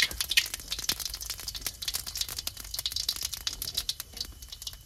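Cumin seeds crackling in hot oil in a frying pan: rapid, irregular pops and crackles.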